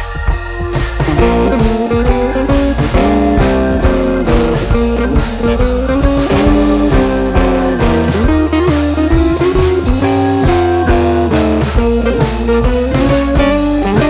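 Background music with a steady beat; a melody line comes in about a second in.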